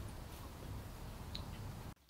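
Faint background noise with a steady low rumble and a few small clicks, cutting off suddenly near the end.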